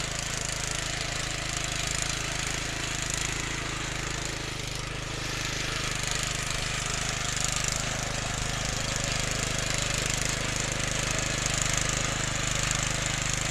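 Honda FJ500 rotary tiller's single-cylinder four-stroke petrol engine running steadily under load, with its tines churning through dry, stony soil.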